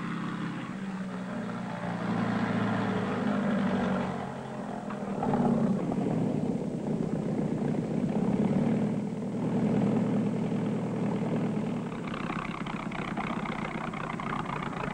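Propeller engine of a high-wing single-engine light aircraft running as it lands and taxis in. The engine note rises and falls in loudness, then turns louder and brighter over the last few seconds as the plane comes close.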